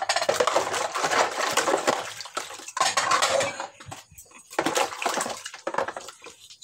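Dishes being rinsed by hand in a basin of water, on the second rinse: water splashing and sloshing in several bursts, with plates and cutlery clinking against each other and the basin. A few sharp clinks near the end.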